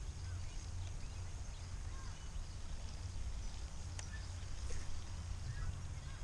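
Wind rumbling on the microphone, with scattered short bird chirps over it and one sharp click about four seconds in.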